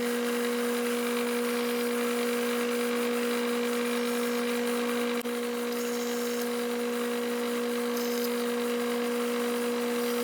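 Bridgeport vertical milling machine running with a steady hum while drilling holes in a 3/8-inch piece of Lexan plastic.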